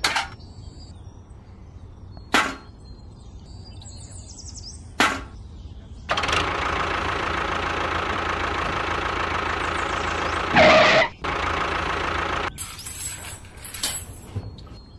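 Three sharp clacks, about two and a half seconds apart, as small metal buckets are set down. Then a toy tractor's small motor runs steadily for about six seconds, with a brief louder burst near its end, followed by a few light ticks.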